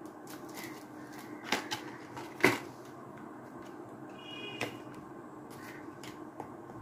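Cardboard and paper phone packaging being handled: a few sharp clicks and taps as the paper insert and the phone box are moved, the loudest about two and a half seconds in.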